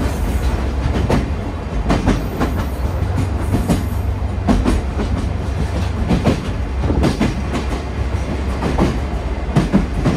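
Sagano Romantic Train rolling along, heard from inside its open-sided car: a steady low rumble with irregular clicks and knocks of the wheels over the rails.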